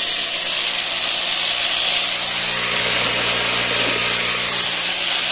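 Vibratory polishing machine (a 'pipoqueira') running with a load of wooden balls churning inside: a steady hiss-like rush over a low motor hum. It is the first smoothing stage, before wax is added.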